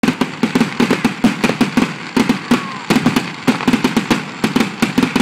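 Fireworks going off in quick succession: a dense, irregular run of sharp crackling pops, several a second.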